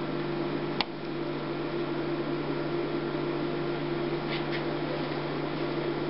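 Steady mechanical hum from an HP DesignJet Z3200 large-format printer, with one sharp click about a second in and a couple of faint clicks later on.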